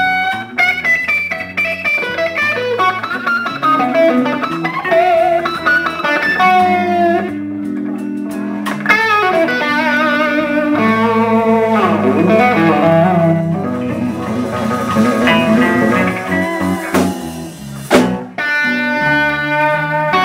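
Live blues band: an electric guitar solo of single notes, many of them bent, over the band's bass and drums. Sharp hits land about nine seconds in and again near eighteen seconds.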